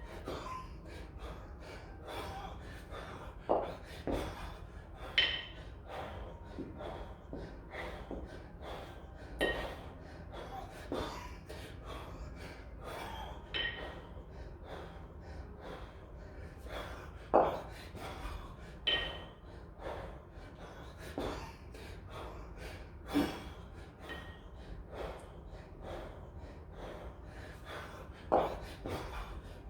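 A man's hard breathing and gasps from the strain of kettlebell long cycle with two 24 kg kettlebells, sharp breaths every second or two. Brief metallic clinks ring out every few seconds, typical of the iron bells knocking together.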